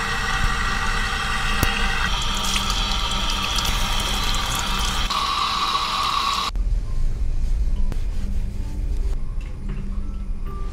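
Water spraying from a handheld shower head onto wet hair and running into a salon wash basin, with steady held tones alongside; the spray stops abruptly about six and a half seconds in.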